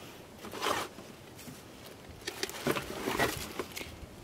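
Rustling and crinkling of plastic wrap and cardboard as a plastic-wrapped electric skillet is lifted out of its box: a brief rustle under a second in, then a longer spell of rustling in the second half.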